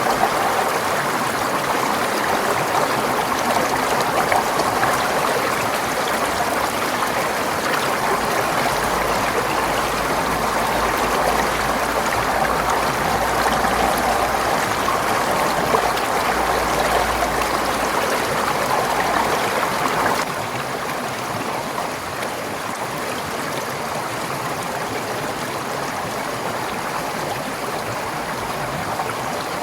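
Forest stream flowing, a steady rushing and gurgling of water. Its level drops slightly about two-thirds of the way through.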